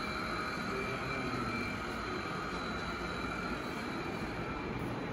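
Steady background noise, a low rumble with hiss over it and a faint high whine that fades out near the end.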